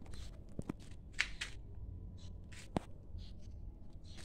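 Scattered short rustles and a few sharp clicks, the loudest near the start and about three seconds in, over a low steady rumble.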